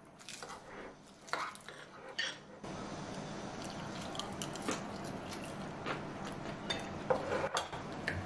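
Metal spoon clinking and scraping in a small ceramic bowl of rice topped with seasoned seaweed, then chewing of the mouthful, with scattered short clicks.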